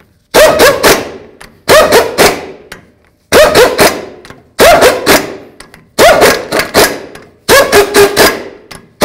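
Snap-on impact wrench snugging the rear axle shaft flange bolts one after another in a crisscross order. It makes six short bursts of three or four rapid hammering blows, about one every second and a half, each ending in a brief falling tone.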